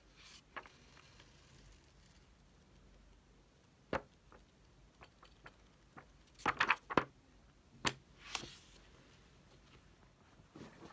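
Scattered small clicks and taps of objects being handled on a desk: a single sharp tap about four seconds in, a quick run of taps around six and a half seconds, another click near eight seconds and a brief rustle just after.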